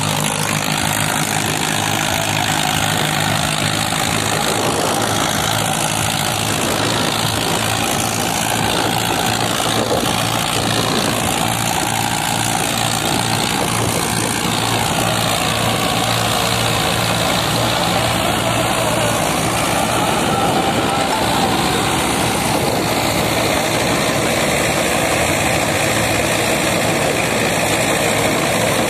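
Mahindra Arjun 555 DI tractor's diesel engine running steadily under load, driving a straw reaper through the stubble. The reaper's chopping and blowing of the straw adds a continuous rushing hiss over the engine's even beat.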